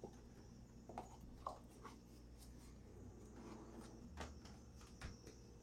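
Near silence: room tone with a few faint, light clicks and taps.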